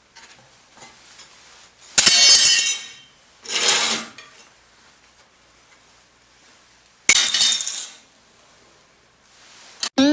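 Steel parts clanking: a sharp metallic clank that rings briefly about two seconds in, a shorter scraping swish, and another ringing clank about seven seconds in.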